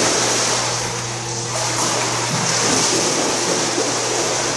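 Pool water churning and rushing steadily, with a dog wading and splashing through it, over a steady low hum.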